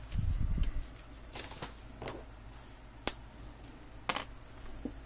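Art supplies handled on a desk: a dull bump at the start, then scattered light clicks and rustles, with one sharp click about three seconds in.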